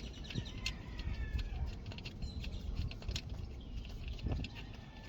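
Scattered light clicks and knocks of hand tools, a ratchet and socket working the starter mounting bolts, over a low rumble.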